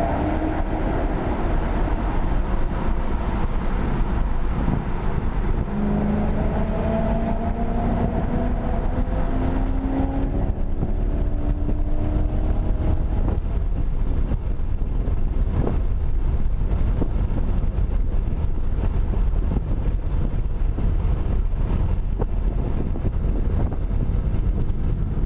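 Car engine accelerating, its pitch climbing slowly at the start and again from about six to thirteen seconds in, then steady cruising with a low rumble of road and wind noise.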